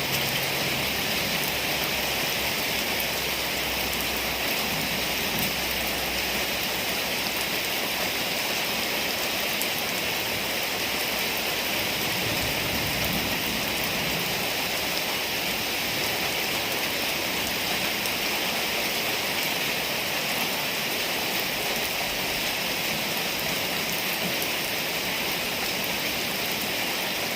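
Heavy rain falling steadily, an even hiss of rain on surfaces that holds unchanged.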